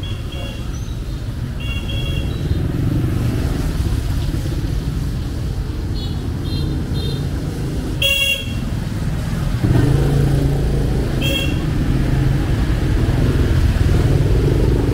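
Street traffic of motorbikes and cars running by, with short horn beeps again and again: three quick toots about six seconds in, the loudest beep about two seconds later, and another near eleven seconds. The engine noise grows louder from about ten seconds in.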